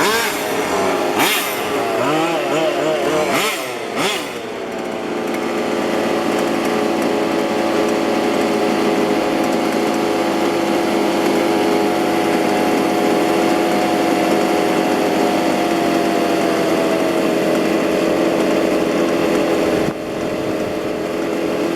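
Small petrol two-stroke engines of 1:5 scale RC cars running, their pitch swinging up and down with throttle for the first four seconds, then settling into a steady high drone of several engines at once.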